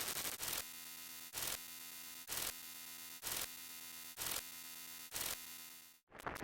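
Steady electrical hum with a short burst of static about once a second, six times in all. Near the end it cuts out briefly and comes back as denser static.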